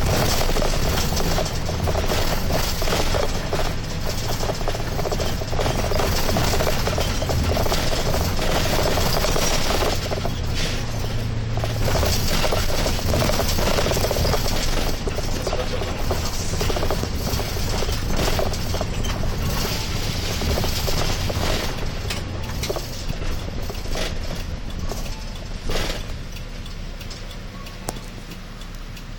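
Diesel route bus driving, heard from inside the cabin: steady engine hum under road and tyre noise, quietening near the end.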